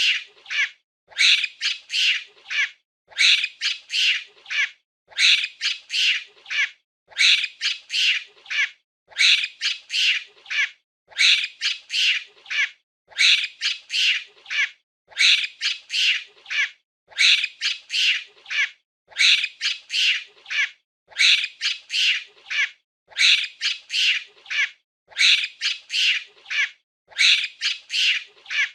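Monkey screeching: a quick cluster of four or five high-pitched calls, repeated evenly about every two seconds.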